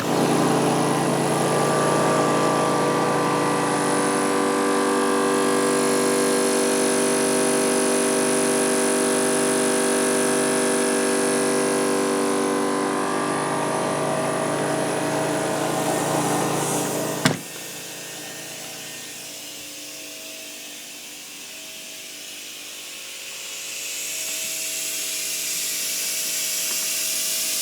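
Electric air compressor running steadily, then cutting off with a sharp click about 17 seconds in. A quieter hum follows, then a hiss of escaping air that grows louder near the end, from a leak in the air line.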